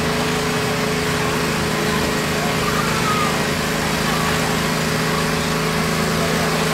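Small engine of a riding lawn mower running steadily as it creeps slowly past, a constant even hum.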